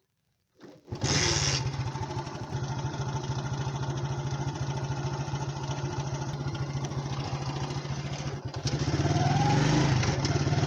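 Motorcycle engine starting up about a second in and running steadily with a fast even beat, then getting louder with its pitch rising and falling near the end as it revs and pulls away.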